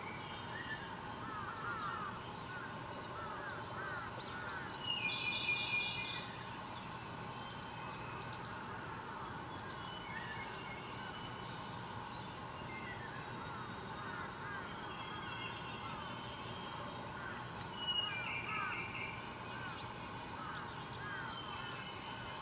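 Wild birds calling in forest: many short rising chirps go on throughout, and a louder harsh, crow-like call comes twice, about five seconds in and again near eighteen seconds.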